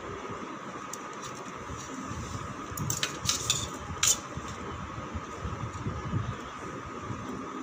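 A table knife clicking and scraping against a stainless steel plate as a bread sandwich is cut, with a few sharp clicks about three to four seconds in. A steady hum runs underneath.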